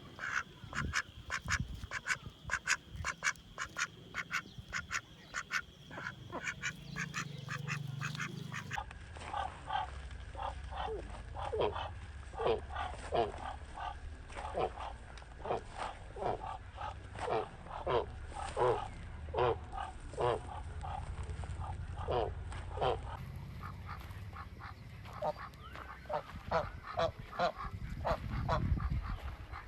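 Ducks quacking in a long run of short calls, quick and rapid for the first several seconds, then slower, louder calls that drop in pitch.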